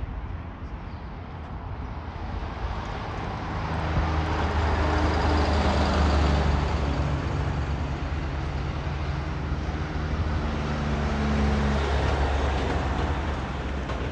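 Jet airliner's engines at take-off thrust: a deep rumble with a low hum that swells over the first few seconds, stays loud, and eases near the end.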